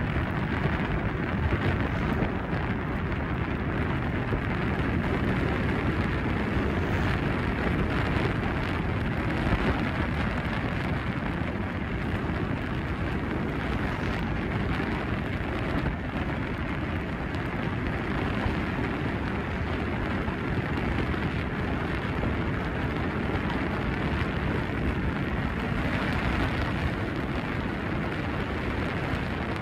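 Steady rush of wind buffeting a phone's microphone while riding an electric scooter along a road.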